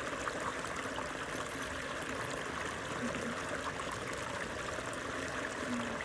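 Small forest stream running over rocks in a small cascade: a steady, even water rush.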